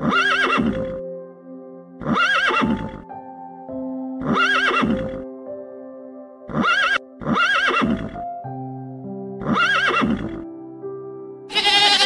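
Calm background music with sustained notes, over which an animal calls six times, a short call every second or two that arches up and down in pitch.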